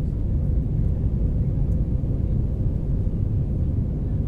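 Jet airliner cabin noise during the climb after takeoff: a steady low rumble of the engines and rushing air heard inside the passenger cabin, with a faint steady hum above it.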